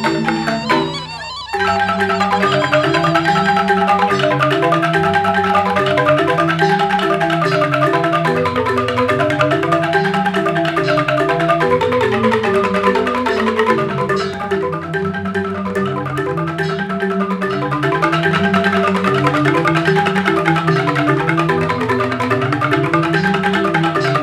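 Balinese bamboo gamelan of mallet-struck bamboo xylophones playing a fast instrumental piece, its low notes cycling through a repeating melodic figure. The sound dips briefly about a second in, then the full ensemble comes back in.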